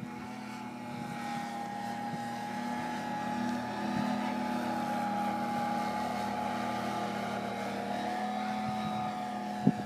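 Radio-controlled scale Sopwith biplane in flight, its engine and propeller making a steady drone that grows a little louder about four seconds in as it passes, the pitch sagging slightly after. A single sharp knock near the end.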